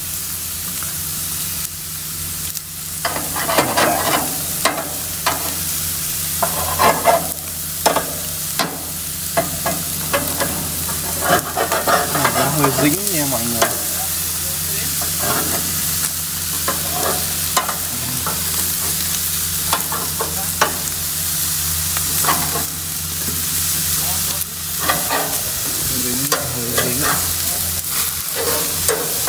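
Seasoned beef steaks and sausages sizzling on a hot barbecue grill grate: a steady hiss with frequent crackles and pops.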